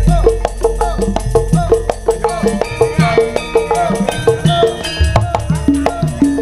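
Javanese gamelan (karawitan) ensemble playing an instrumental passage in Sragenan style, with no singing: a steady, quick pulse of struck notes over drumming, and deep sustained low notes beneath that fade about a second in and return strongly about five seconds in.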